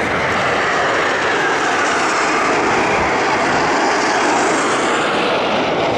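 Dassault-Dornier Alpha Jets, twin-turbofan trainers, flying past in formation: a loud, steady jet roar with a whine that slides down in pitch as they go by.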